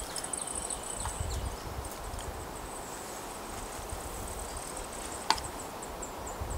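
Thin, very high songbird chirps and a rapid trill, repeated, with a few short falling notes about a second in. A single sharp click comes about five seconds in.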